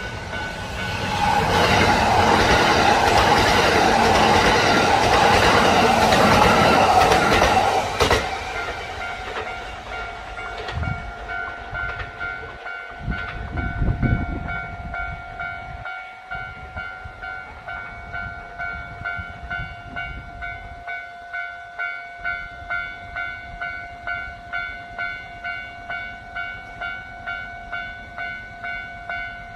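Train running on rails: a loud rushing stretch for several seconds, then a steady hum with regular clicks of the wheels over the rail joints, about one and a half a second.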